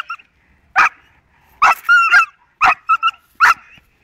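A five-and-a-half-month-old Belgian Malinois puppy barking over and over, about six barks, one longer and higher-pitched near the middle, while held back by its harness in bite-work training.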